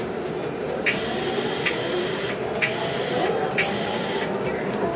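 City transit bus braking, its brakes giving a high, steady whistle-like squeal three times over a little more than three seconds, over the bus's running engine and road noise heard inside the cabin.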